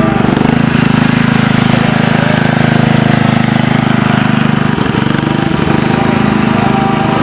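Riding lawn mower's engine running at a steady speed as the mower pulls away.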